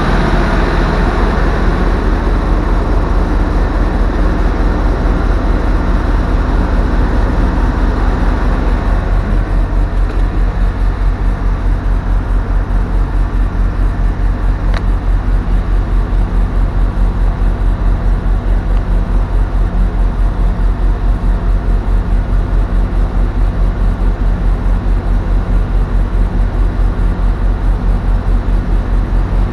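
Volvo FL 240's turbo diesel truck engine running with a steady, evenly pulsing beat, settling in the first several seconds as its higher-pitched part dies down.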